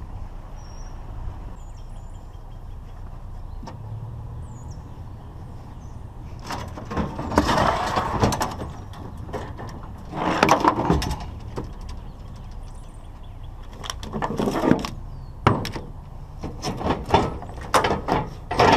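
Scrap metal being worked by hand: three scraping, rattling bursts about a second long, then a quick run of sharp metallic clicks and knocks near the end, over a steady low hum.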